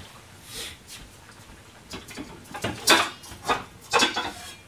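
Kitchen clatter: a series of sharp knocks of dishes and utensils being handled, coming about two a second in the second half.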